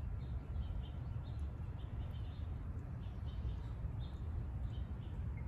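Short, high bird chirps, a few each second, over a steady low rumble.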